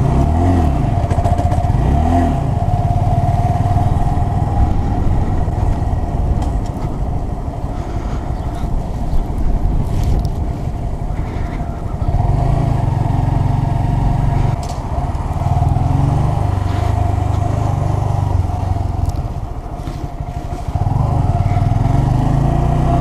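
A 2017 Honda Grom's 125 cc single-cylinder engine running as the bike is ridden. The engine note rises twice in the first couple of seconds as it accelerates through the gears, then holds steady, easing off briefly about twenty seconds in.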